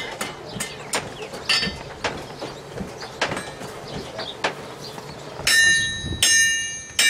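Blacksmith's hammer on an anvil: light scattered taps and clinks, then from about five and a half seconds in three hard blows, each leaving a bright metallic ring.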